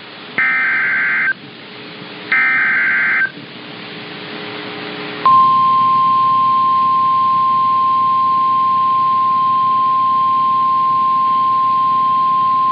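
NOAA Weather Radio alert sequence: two short bursts of warbling digital data, the SAME header that encodes the alert, then a few seconds of static. Then, about five seconds in, the 1050 Hz warning alarm tone starts: one steady, loud beep that marks a new warning about to be read.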